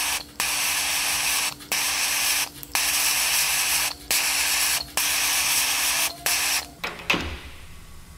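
Heating tool hissing steadily as it warms a differential carrier bearing before the bearing is fitted, with a faint hum under it and brief breaks every second or so. It stops about seven seconds in with a sharp knock.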